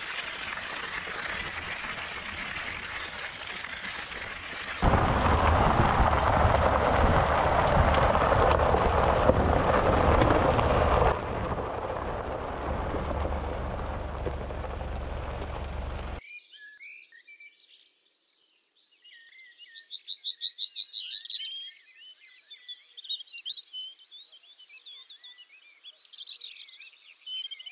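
Mountain-bike tyres rolling over a gravel path, then, about five seconds in, the louder rumble of a car's tyres on a gravel road, which eases off and cuts out about two thirds through. Birds singing follow, with a fast repeated trill among the chirps.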